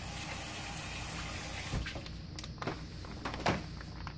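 Kitchen tap running, then shut off about halfway through, followed by a few light knocks, the loudest near the end.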